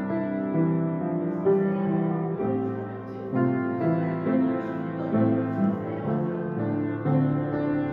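Background music led by piano, with sustained notes that change every second or so.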